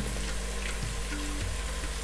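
Hot oil sizzling and crackling steadily as grated garlic and ginger fry with whole spices, still short of brown. Quiet background music plays underneath.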